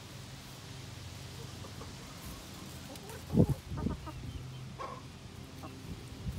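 Backyard hens clucking a few times, in short calls, with one louder than the rest a little past halfway.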